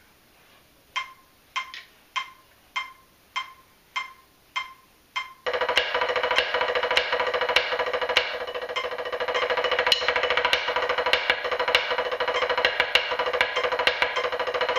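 A metronome clicks eight times at 100 beats per minute as a two-bar count-in. About five and a half seconds in, a rudimental snare drum solo begins: fast, dense diddles (double strokes) with the head ringing under them, while the click carries on.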